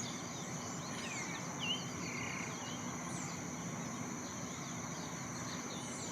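Many small birds chirping with quick, falling calls over a steady high insect drone.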